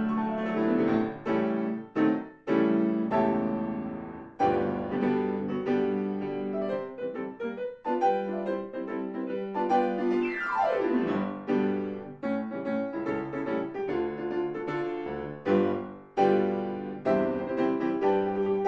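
Piano music accompanying a silent film, a lively run of struck notes and chords, with a fast descending run down the keyboard about ten seconds in.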